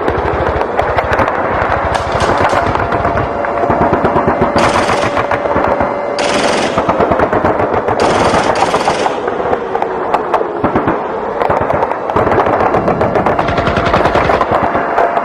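Sustained rapid machine-gun fire, a dense unbroken stream of shots with brief hissing bursts a few seconds in, over a faint steady tone.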